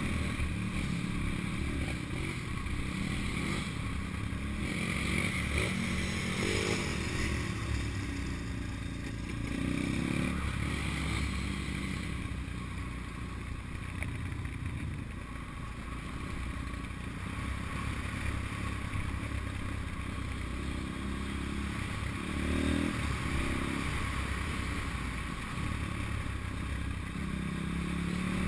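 Pit bike's small single-cylinder engine running while being ridden, the revs rising and falling several times as the throttle is opened and closed.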